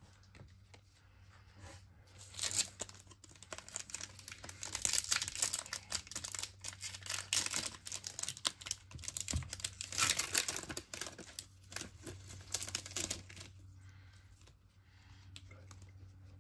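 A baseball trading-card pack's wrapper being torn open and crinkled, a dense run of crackling and rustling that starts about two seconds in and dies down a few seconds before the end.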